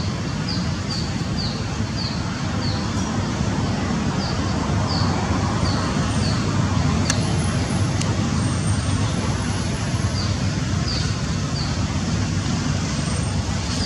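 Steady low outdoor rumble throughout, with a run of short, high, downward chirps repeating about twice a second over it.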